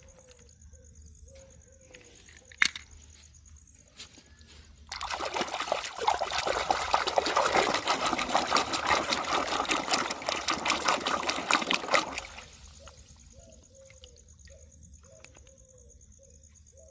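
Water pouring and splashing onto plastic toys as they are washed. It starts suddenly about five seconds in and cuts off about twelve seconds in. There is one sharp click about two and a half seconds in.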